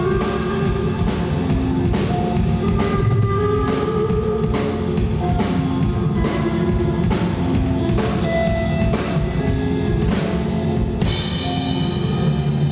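Live rock band playing: a drum kit keeps a steady beat under an electric guitar's repeating figure. About eleven seconds in the drumming drops away and a held, ringing chord remains.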